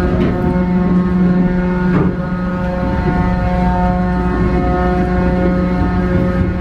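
Steady machinery hum inside an aircraft carrier: a constant low drone with a ladder of steady tones over a continuous rush. There is a brief knock about two seconds in.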